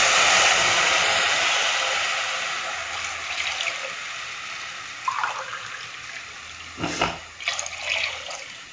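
Water poured from a steel glass into a hot pan of fried vegetables and hyacinth beans, rushing and hissing at first and fading gradually over several seconds. Near the end a few sharp clinks and splashes as a steel cup is dipped into the pan.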